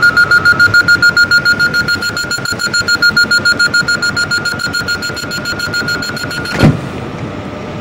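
Door-closing warning on an Alstom Coradia Liner Intercités train: a rapid, steady electronic beeping on one high pitch, several beeps a second. It cuts off about six and a half seconds in with a single sharp knock, the doors shutting, and a quieter steady hum of the train follows.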